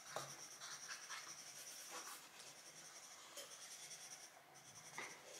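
Faint handling noise with a few soft taps: a small child working play dough on a table.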